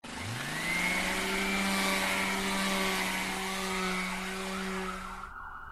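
Intro sound effect: a motor-like hum that rises in pitch over the first second and then holds steady under a loud hiss, cutting off about five seconds in.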